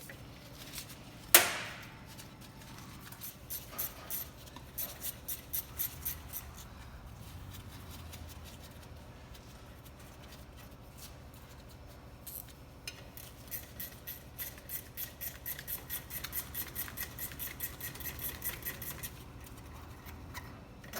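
Hand ratchet clicking in quick repeated strokes while the rear brake calipers are being unbolted, in two long runs. A single sharp knock comes about a second in.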